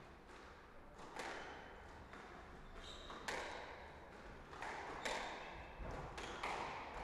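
Squash ball knocked back and forth in a rally: about four sharp knocks of racket and ball on the walls, each echoing, with brief squeaks of court shoes on the wooden floor.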